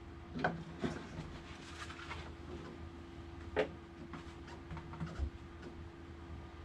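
Scattered light knocks, clicks and scrapes of a model jet's wing being slid onto the fuselage, the sharpest knock about three and a half seconds in, over a steady hum.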